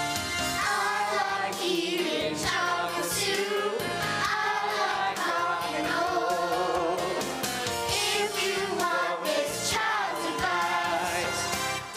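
Children's choir singing a song with music accompanying it.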